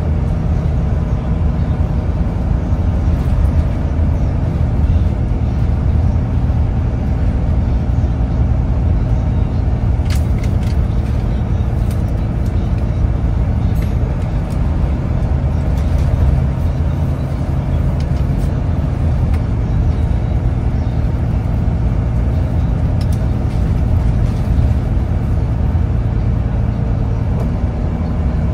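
Volvo B9TL bus's Euro 4 diesel engine running under way at road speed: a steady low drone whose pitch shifts slightly as the bus pulls. A few light rattles come through about a third of the way in.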